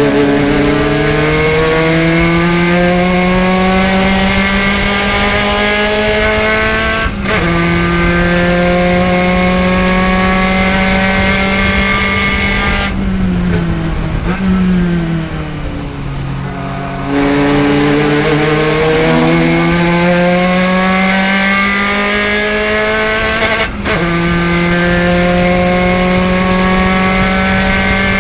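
Spec Racer Ford Gen3 race car engine under full racing load. The revs climb steadily and break off briefly for an upshift about seven seconds in, climb again, then drop away with downshifts as the car slows in the middle. It pulls back up through the revs with another short break for an upshift near the end. The breaks come from the driver lifting off the throttle and using the clutch to shift the H-pattern gearbox.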